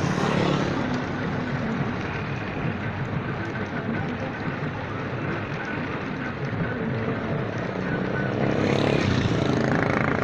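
Motor vehicle driving along a road: a steady engine hum with road noise, swelling louder at the start and again near the end.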